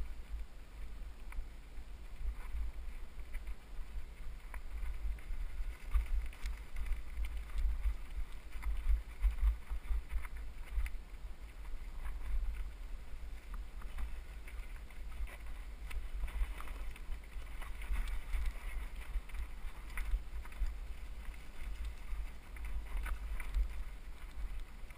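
Wind buffeting the helmet camera's microphone as a low, gusting rumble during a descent over a loose gravel track, with scattered rattles and knocks from the ride over stones.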